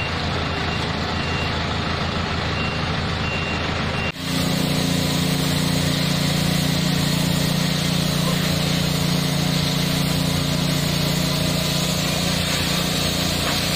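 Heavy road-construction machinery engines running steadily, with a reversing alarm beeping on and off for the first few seconds. About four seconds in the sound cuts abruptly to a louder, steady, low diesel engine drone.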